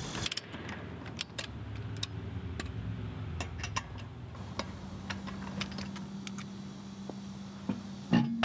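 Rear wheel spun by hand off the ground, giving irregular light metallic clicks and rattles: a loose brake pad knocking in its caliper because its pad spring is bent. A louder knock comes near the end, over a low steady hum.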